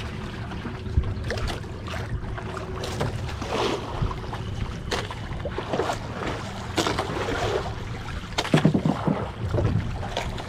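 Low rumble of a small boat at sea with wind buffeting the microphone, a faint steady hum under it for the first few seconds. Brief indistinct voices come through a few times, most clearly near the end.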